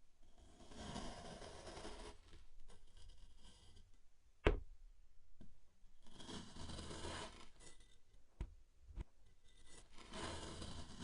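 Kinetic sand being cut and scraped with a tool: three stretches of gritty scraping, about a second and a half long each, with a few sharp taps between them, the loudest about four and a half seconds in.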